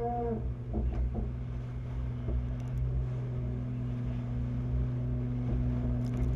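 Wind and rushing water along the hull of a large racing yacht under sail, over a steady low motor hum. A short pitched call sounds right at the start.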